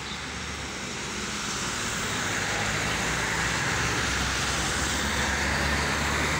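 Cars driving past on a city street, engine hum and tyre noise growing louder as vehicles come up from behind and pass.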